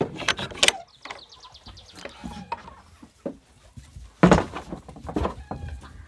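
Wooden plank shed door with a metal bolt latch being unbolted and pushed open: rattles and knocks, a quick run of creaking ticks about a second in, and a loud thump about four seconds in.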